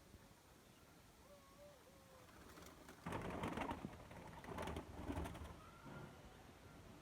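Dove cooing: a faint wavering coo a little after one second in, then louder, noisier sounds about three and five seconds in, and a faint call near the end.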